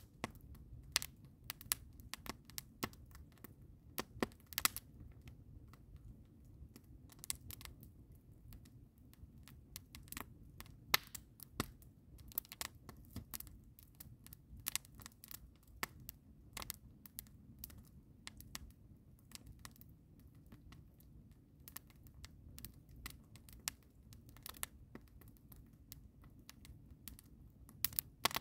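Wood campfire crackling: irregular sharp pops and snaps, several a second, over a low steady rumble.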